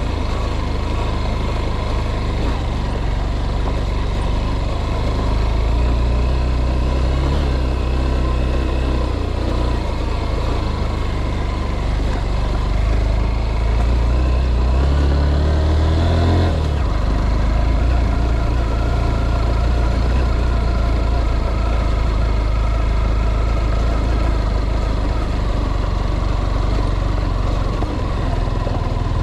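A vehicle engine running steadily. About halfway through, its pitch climbs and then drops, as at a gear change.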